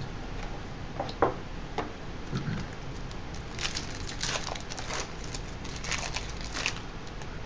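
Trading cards being handled and flipped through by hand: a run of light flicks and rustles, sparse at first and busier in the second half.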